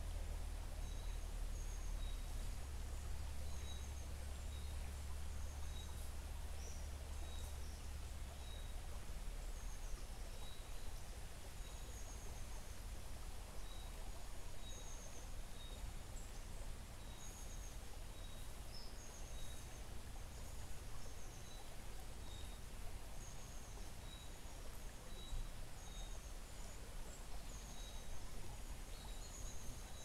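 Gently flowing creek water with birds chirping: a short high note repeating about once a second and brief higher twittering phrases every second or two, over a low rumble that eases after the first eight seconds or so.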